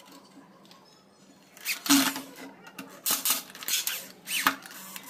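A knock about two seconds in, then a corded electric drill run in several short bursts as the bit bores into plywood.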